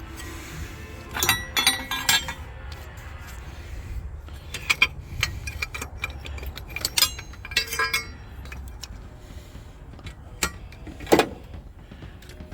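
Irregular light metal clinks and taps from metal engine parts and tools being handled while the coolant return tube is swapped. The loudest knock comes about eleven seconds in.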